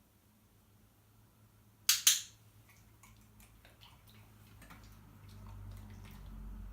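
Training clicker pressed once, a sharp two-part click (press and release) about two seconds in, marking the moment the dog gets the behaviour right. Faint small ticks follow, and a low rumble builds toward the end.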